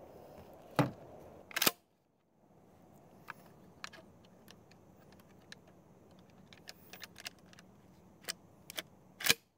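Stevens 320 12-gauge pump-action shotgun being handled and loaded with a homemade shell: metal clicks and clacks of the action. Two loud clacks come in the first two seconds, many small clicks follow, and one loud clack comes near the end.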